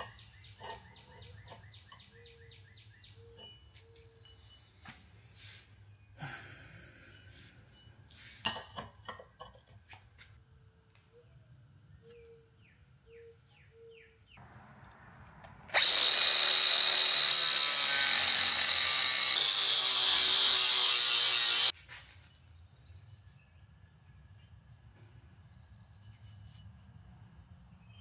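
Cordless angle grinder with a cutoff wheel cutting through galvanized steel pipe: one loud, steady, hissing cut that starts abruptly about halfway through and stops sharply about six seconds later.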